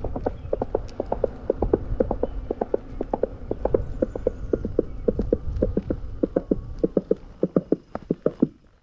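Horse-hoof clip-clop sound effect from the EUC World app's AVAS, played through an electric unicycle's speaker: hollow, coconut-like knocks at a steady trot of about four or five a second over low rumble, fading out near the end.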